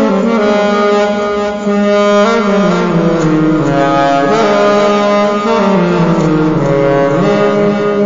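Saxophone playing a slow melody in held notes that step down and back up, sliding between some of them.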